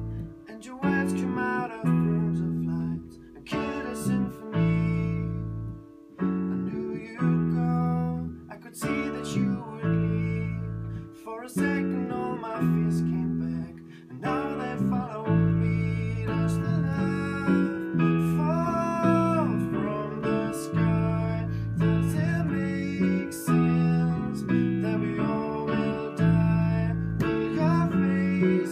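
Live pop song played on an electric bass guitar and a keyboard, with a man singing over them, picked up by the camera's own microphone in a small studio.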